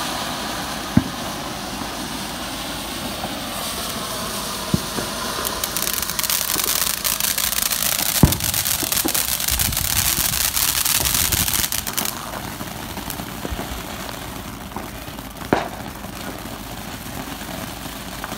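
Ground fountain fireworks spraying sparks with a steady hiss. The hiss grows much louder and sharper from about six seconds in to about twelve. A few sharp pops stand out, the loudest about eight seconds in.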